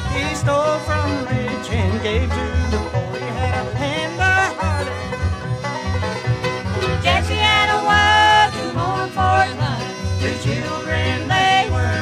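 Recorded bluegrass string band playing an instrumental passage: banjo and guitar over a bass walking on the beat, with fiddle lines sliding and holding notes above.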